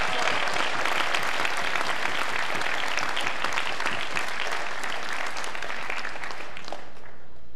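Large audience applauding, a dense spatter of clapping that stops near the end.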